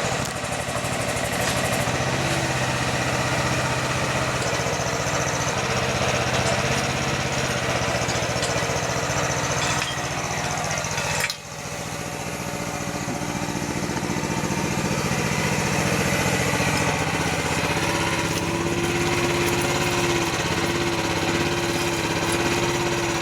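Mini excavator's engine running steadily while its hydraulics work, with a higher tone coming and going over the engine note. The whole sound drops out suddenly for a moment about 11 seconds in.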